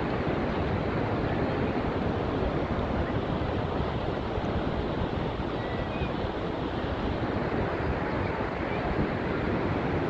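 Steady wash of ocean surf mixed with wind rumbling on the phone's microphone.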